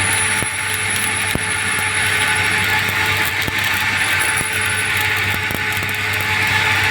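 Stick-welding (SMAW) arc burning steadily with a continuous frying crackle and hiss, with a few sharper pops, while the final cap layer is laid on a vertical-up 3G test plate. A low, steady hum runs underneath.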